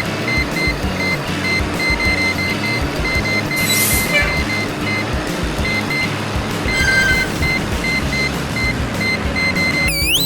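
Radio-controlled heavy model running with a steady whirring mechanical noise and a low hum, while a high electronic beeper sounds in runs of short beeps that start and stop several times.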